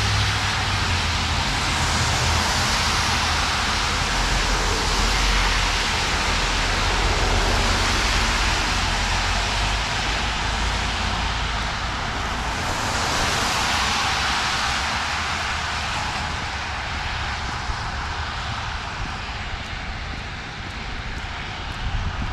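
Road traffic on a rain-wet street: cars passing one after another, their tyres hissing, each swelling and fading. A low engine rumble sounds in the first couple of seconds.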